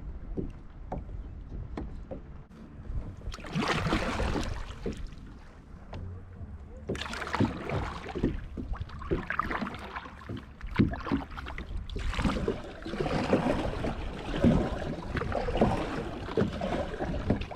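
Water sloshing and splashing around a kayak in several bursts a few seconds long, with short knocks on the hull.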